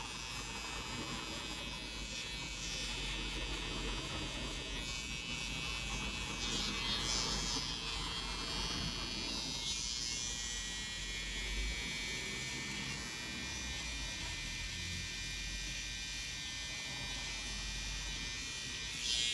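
Babyliss Pro cordless detailer trimmer running with a steady electric buzz as its T-blade edges hair at the hairline and beard line. The buzz brightens briefly a few times.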